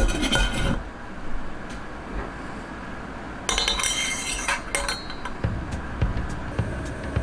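Domed stainless-steel lid of a KUYURI compact smoker set onto the pot with a short metallic clatter, then about three and a half seconds in a second burst of metal clinking and scraping as a dial thermometer's probe is pushed through a hole in the lid.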